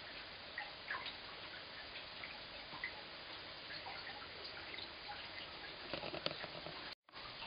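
Heavy rain falling onto a flagstone path and shrubs: a steady hiss with a constant patter of small drip ticks, a cluster of louder splashes about six seconds in. The sound cuts out for an instant near the end.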